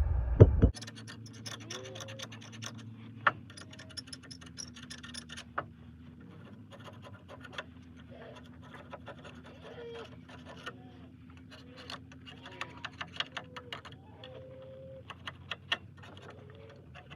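Metal tools and parts being handled on a bare hub: a loud knock about half a second in, then scattered clicks and scraping, with a low steady hum and short faint calls in the background.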